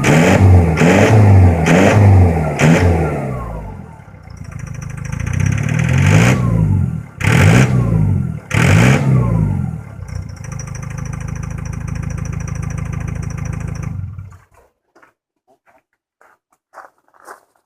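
Ford Transit engine and exhaust, the throttle blipped in a series of quick revs, then a second run of revs after a brief lull, then running steadily before cutting off abruptly about 14 seconds in. The owner puts this exhaust sound down to a bad solenoid. After the engine stops there are only a few faint ticks.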